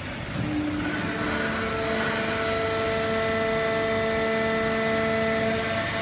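Fully automatic hydraulic horizontal baler running: a steady machine noise, with a hum of several steady whining tones that sets in and grows louder about a second in.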